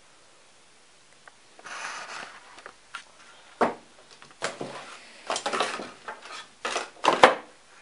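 Handling noise from unboxing small hobby electronics: a series of rustles, clicks and light clatter of parts and packaging being handled, starting after a short quiet stretch and loudest near the end.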